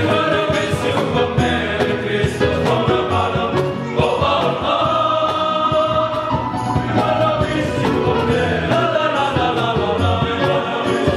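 Male choir of young religious novices singing a church song together, accompanied by an electronic arranger keyboard, electric bass guitar, violins and acoustic guitar.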